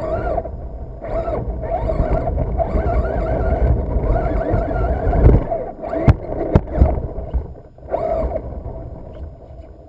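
Onboard sound of a Traxxas Slash brushless 2WD RC truck running on a dirt track: a wavering motor and drivetrain whine over the rumble of the tyres, with several sharp knocks from bumps a little past halfway, fading toward the end.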